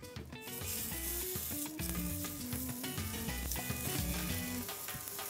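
Minced-meat kofta patties sizzling on a hot, oiled grill, starting about half a second in, over soft background music.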